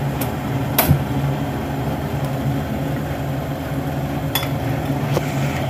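A steel spoon taps sharply against the turmeric jar and the aluminium pot as turmeric powder is spooned in. The loudest tap is about a second in and a lighter one comes near the end, over a steady low hum.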